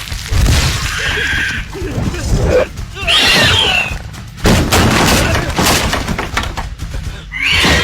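Action-film soundtrack: music with loud crashing and breaking impacts, and a high arching cry about three seconds in and again near the end.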